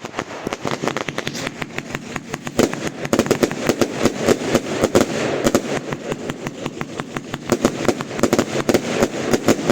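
Fireworks going off in a rapid, irregular volley of sharp bangs and crackles, several a second, with a denser run around three to five seconds in.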